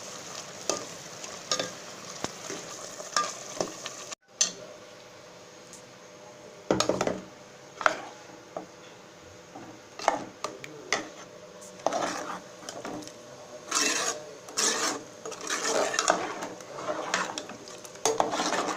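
A spoon scraping and stirring in a pan of frying chicken curry masala as ground coconut is mixed in, the food sizzling under irregular strokes against the pan. The sound cuts out abruptly for a moment about four seconds in.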